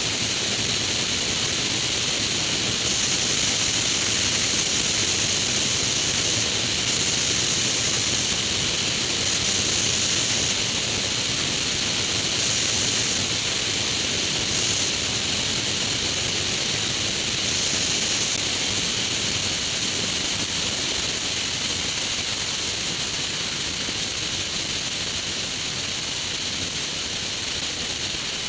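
Steady rush of wind and engine noise from a Grob G109 motorglider in powered flight, heard through a camera mounted on its wing, with the hiss swelling and easing from time to time.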